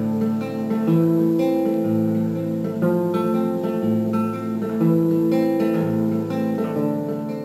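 Background music: acoustic guitar playing slow chords, each held about a second or more before the next.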